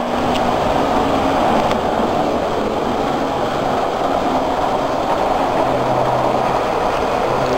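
Model trains running on the layout: a steady rolling rumble of wheels on track, with a couple of faint clicks in the first two seconds.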